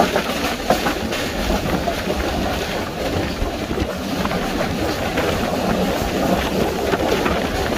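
Passenger train running along the track, heard from aboard a carriage: a steady rumble of the wheels on the rails.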